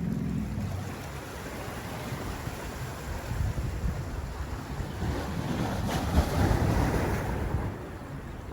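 Sea waves washing against a rocky shore, swelling louder about five seconds in and easing off near the end, with wind rumbling on the microphone.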